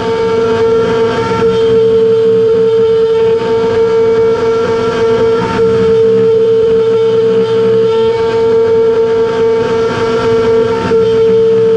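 The router spindle of a Shapeoko XL CNC, running a 90-degree solid carbide V-bit through 6061 aluminum plate, gives a steady whine with cutting noise under it as the machine engraves a crosshatch. The bit is cutting dry, with no oil or other lubricant.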